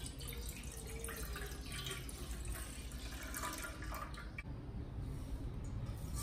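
Milk pouring from a glass measuring jug into a saucepan, splashing and gurgling as the pan fills, thinning out about four and a half seconds in.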